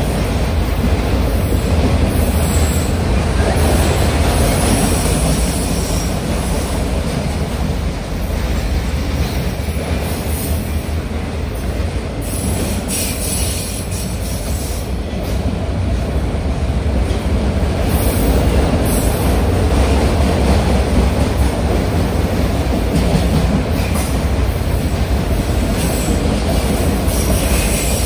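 Autorack freight cars of a Kansas City Southern train rolling past: a steady heavy rumble of steel wheels on the rails. Brief high-pitched wheel noise comes and goes every few seconds.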